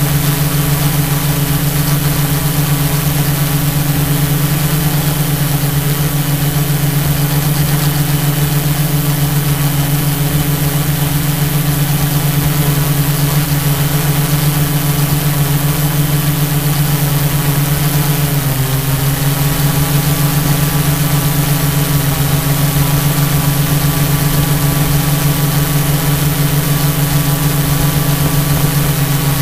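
Hexacopter's six electric motors and propellers running steadily in flight: a loud, even hum with a whine above it. About two-thirds of the way through the pitch dips briefly and comes back up.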